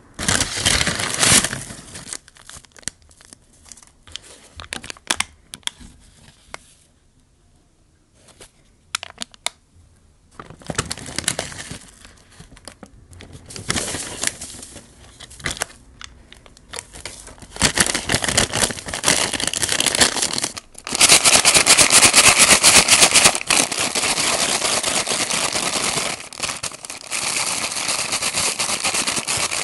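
Paper bag crinkling in short, separate rustles as it is handled and the fried chicken goes in. After about 17 seconds comes a continuous, vigorous rustling as the closed bag is shaken hard to coat the chicken in seasoning powder, loudest a few seconds into the shaking.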